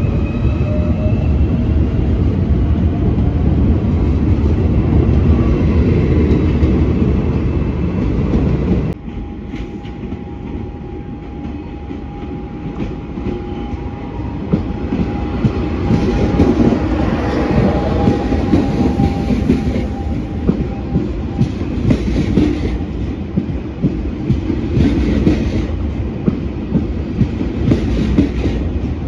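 Trains running through a railway station. A loud rumble with a rising whine breaks off abruptly about nine seconds in. A quieter rumble follows, under a steady whine, and it builds into wheels clattering over rail joints.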